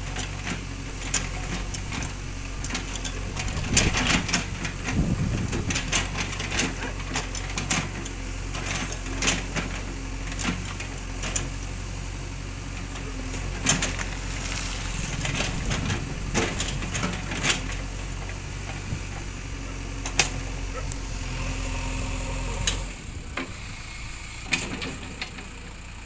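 JCB 3DX backhoe loader's diesel engine running steadily under load as the backhoe bucket digs rubble and soil, with frequent sharp knocks and scrapes of stones and debris against the bucket. Near the end the engine note drops and the sound gets quieter.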